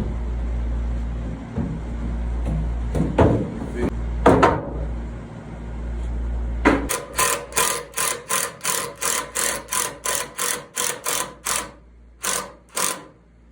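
Battery-powered drill fastening a table leg into a wooden frame, run in short even bursts about three a second, after a few knocks as the leg is set in place.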